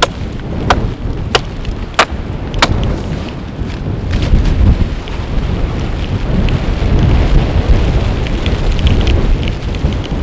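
Wind buffeting the microphone, a heavy low rumble throughout. In the first three seconds, five sharp clicks come evenly spaced, about one and a half a second.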